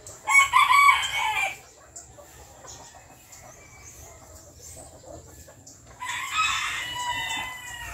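Bantam rooster crowing twice: a short crow soon after the start and a longer one, falling in pitch, near the end.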